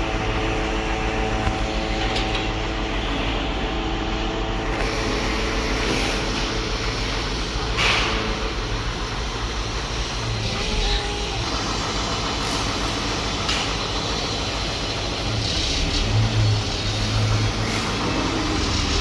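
Heavy diesel construction machinery running steadily, with a few scattered knocks.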